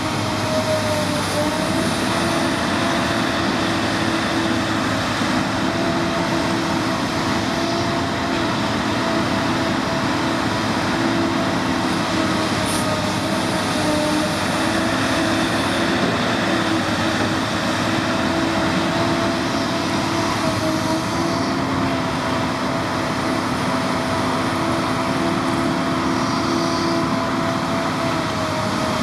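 Excavator engine running steadily, a constant mechanical drone with a whine over it that wavers slightly in pitch.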